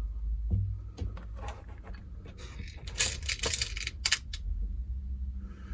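Light metallic clicks and clinks of a padlock key and the lock's small pin-tumbler parts being handled at the cylinder core, with a quick cluster of them about three seconds in, over a steady low hum.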